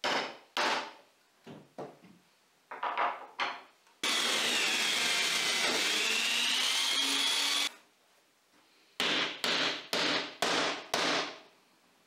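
Hammer tapping a centre punch into chipboard, a few sharp taps at the start. Then an AEG electric drill in a drill stand runs for about four seconds boring into a wooden block, its pitch sagging as the bit cuts and rising again. Near the end comes a quick run of about six knocks.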